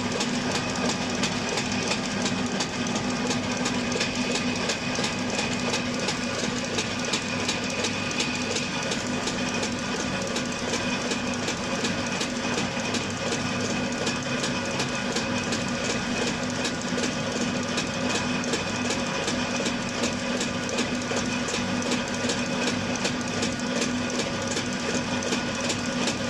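Hino 7D six-cylinder inline diesel injection pump running on a test bench at slow speed, a steady rapid clatter over a constant hum, while its fuel delivery at low speed is measured.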